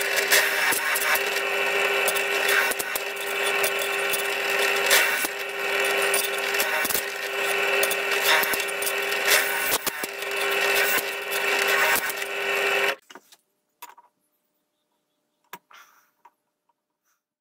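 Bench drill press running and cutting a stainless steel gasket plate held flat by hand: a steady motor hum with a harsh metal-cutting noise and many small ticks. It cuts off abruptly about 13 seconds in, leaving only a few faint handling clicks.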